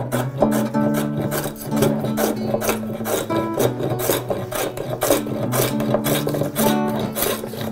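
Hand scrub plane taking heavy, rasping cuts across a rough wooden bench top in quick repeated strokes, hogging off material to knock down the high corners. Background acoustic guitar music plays under it.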